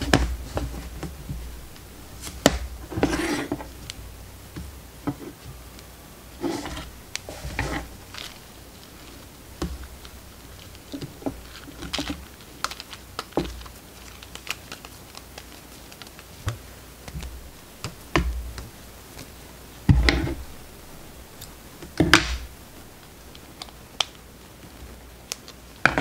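Hand-embroidery handling noises: an embroidery hoop and cotton fabric being moved about on a wooden desk, with scattered small clicks and taps, brief rustles of cloth, and two sharper knocks near the end.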